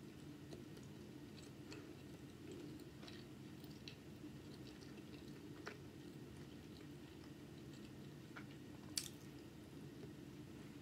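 Faint chewing and soft wet mouth clicks of a person eating barbecue chicken and seasoned rice, over a low steady hum. One sharper click about nine seconds in.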